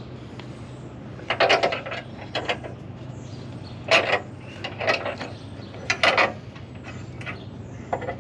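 Scattered metallic clicks and clanks of hand tools being worked on a combine's steel parts, some in quick clusters like a ratchet wrench, over a steady low hum.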